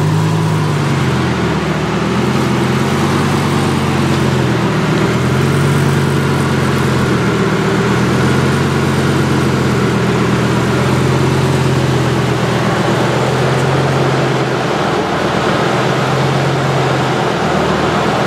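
Lamborghini Gallardo's V10 engine running at a crawl, with a few brief rises in pitch from light throttle in the first several seconds, then a steady low engine note.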